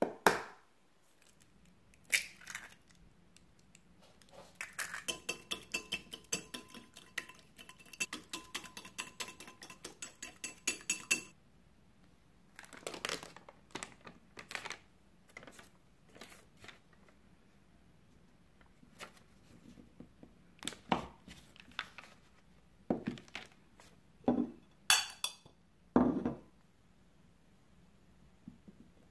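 An egg knocked on a ceramic plate, then a coil whisk beating rapidly against the plate at about five strokes a second for several seconds. After that comes the crinkle of a butter wrapper and the scrape and clink of a table knife cutting butter against the plate, with a few sharp knocks near the end.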